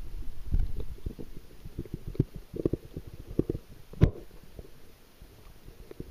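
Muffled underwater sound from a camera held under water: irregular low thumps and knocks from water movement, thinning out in the second half, with one sharp knock about four seconds in.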